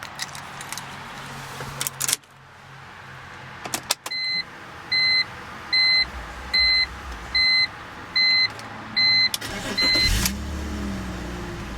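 A few clicks, then the 2006 BMW 330ci ZHP's warning chime beeping eight times, about one beep a second. Near the end the inline-six engine cranks and catches, flaring up briefly and settling into a steady idle.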